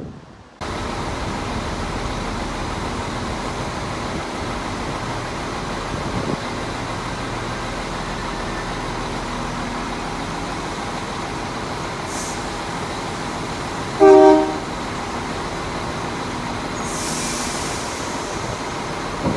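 ICR 22000 Class diesel railcar standing at the platform, its underfloor diesel engines idling with a steady hum. About 14 seconds in there is a brief, loud horn toot, and near the end a hiss of released air.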